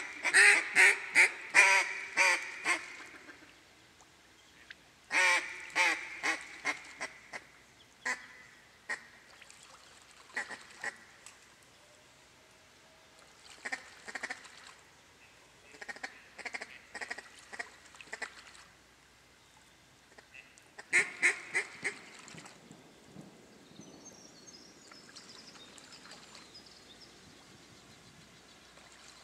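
Mallard duck call blown in series of loud quacks that trail off in volume: one at the start, another about five seconds in and a third about 21 seconds in, with softer, scattered quacks between them. A faint, high chattering sound comes near the end.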